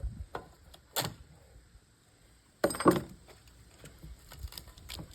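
Clicks and metallic clatter of tools and small parts being handled while pulling clips off the inside of an old television set: a sharp click about a second in and a louder rattling clatter just under three seconds in.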